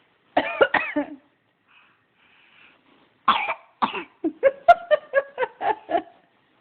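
Repeated coughing: a quick burst of three coughs about half a second in, then after a pause two single coughs and a rapid run of short, pitched coughs.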